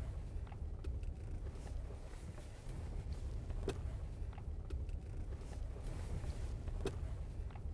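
Low, steady rumble of a car's engine and tyres heard from inside the moving car's cabin, with a few faint clicks about four and seven seconds in.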